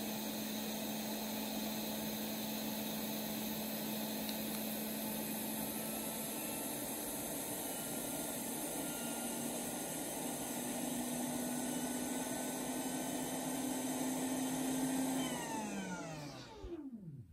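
ATTEN ST-862D hot air station's handpiece fan blowing air, a steady whirring hiss with a hum that rises a little in pitch about ten seconds in. Near the end the station is switched off and the fan spins down, its whine falling in pitch until it stops. The station is heating normally, with no E13 error, after its 7 V supply was wired straight to the board.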